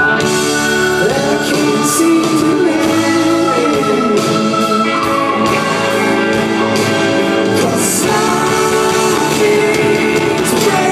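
Rock band playing live in a large hall: guitars and drums with a lead vocal singing long, held notes that bend in pitch.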